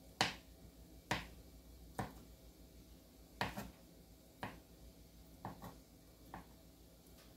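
Kitchen knife slicing through soft canned potatoes and tapping a plastic cutting board: about nine sharp, irregularly spaced taps.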